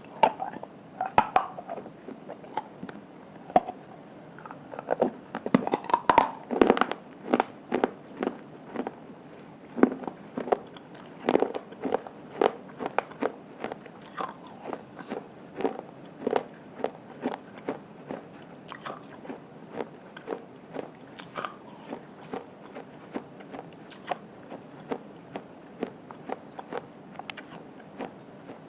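Crunching bites and chewing of a mini clay pot coated with multani mitti (Fuller's earth) paste, close to the microphone. Many sharp crunches come close together in the first half, then settle into a steady run of chews about once a second.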